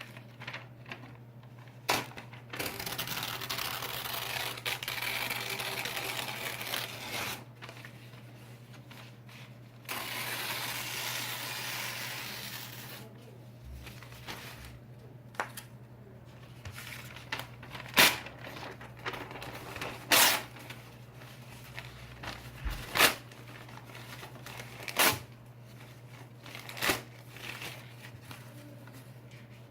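Paper being ripped: two long, slow tears lasting a few seconds each, then a series of short, sharp rips about every two to three seconds. A faint steady low hum runs underneath.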